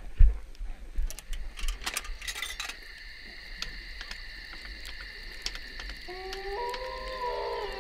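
A snowboard riding down a groomed snow run, heard through a body-worn camera as a low wind rumble on the microphone with a thump just after the start and scattered clicks and knocks. About six seconds in, electronic synth music fades in with held notes that step in pitch.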